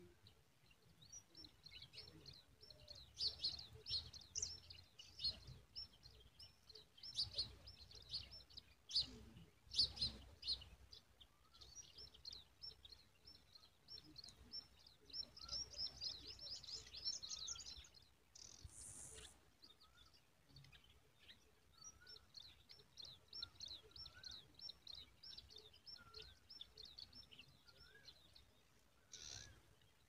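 Baby birds in the nest begging: rapid runs of thin, high chirps coming in bursts, busiest in the first half. In the second half a few lower, wavering notes sound behind them.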